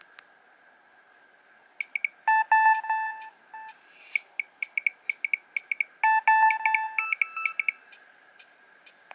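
Nokia 3100 mobile phone playing one of its built-in ringtones: a quick electronic melody of short beeps and a few held notes. It starts about two seconds in and stops just before the end, over a faint steady whine.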